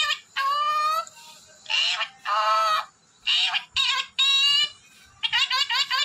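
Parrot calls: a series of loud, pitched whistling squawks, each about half a second to a second long with short gaps, then a quick run of short chirps, about six a second, near the end.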